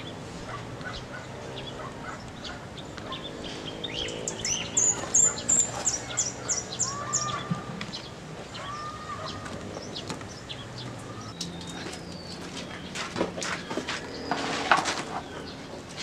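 Yard birdsong with chickens: a bird sings a quick run of high, evenly spaced chirps about five seconds in, followed by shorter arched calls, over a low steady hum. A brief loud noisy flurry comes near the end.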